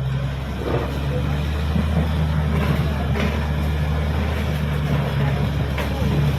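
Caterpillar D6R XL bulldozer's diesel engine running under load, its pitch band rising and dropping back every second or so, with a few faint knocks.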